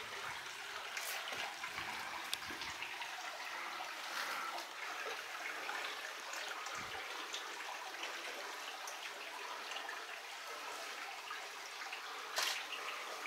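Water trickling and babbling steadily over rock into a pool, with a few faint knocks and a short louder scuffle near the end.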